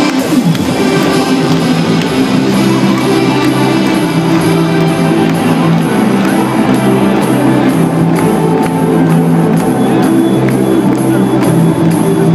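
Loud electronic dance music from a DJ set, played over an arena sound system, with a steady beat of about two a second.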